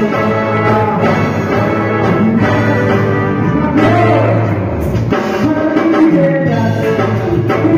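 Live band playing loud amplified music, with held chords.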